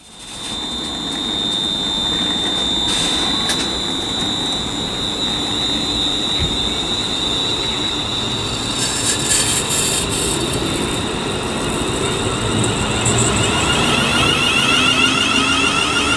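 ScotRail Class 380 electric multiple unit pulling away from the platform, its traction motors whining and rising in pitch as it gathers speed, with a few brief crackles along the way.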